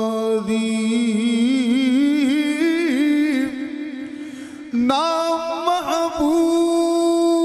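A man's voice chanting unaccompanied in the melismatic style of a qari's recitation: a long held note, then wavering ornaments that climb in pitch, a softer dip about four seconds in, and a jump to a higher held note.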